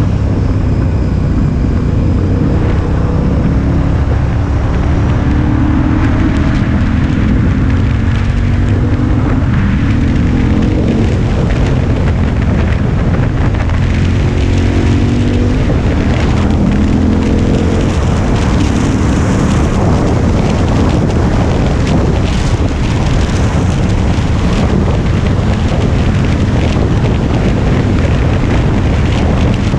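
KTM 1090 Adventure R's parallel-twin engine running under way, its pitch climbing several times in the first half as the bike accelerates, with wind rushing over the microphone that grows heavier in the second half.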